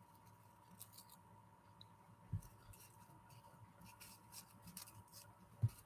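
Faint handling of a small crepe-paper flower: light paper rustles and clicks, with two soft thumps, one about two seconds in and one near the end, over a faint steady hum.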